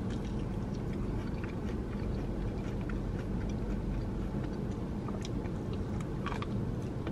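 Close-up chewing and biting of crispy fried chicken wings, with soft crunches and wet mouth clicks, a few sharper ones near the end, over a steady low background hum.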